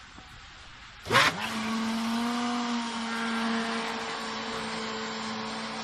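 Electric blender motor switching on about a second in, spinning up quickly and then running at a steady high speed, whipping eggs for a cake batter in the blender jug.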